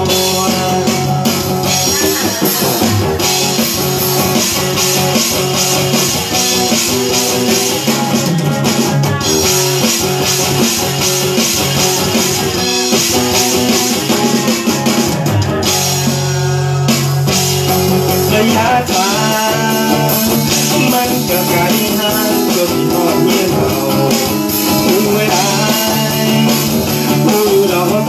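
A live band playing a rock song through a PA: a sung vocal over guitar, keyboard and a beat.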